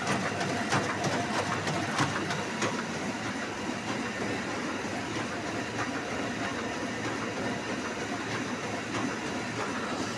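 Heidelberg four-colour sheet-fed offset printing press running: a steady mechanical clatter, with sharp regular clicks about every half second over the first few seconds that then fade into the even running noise.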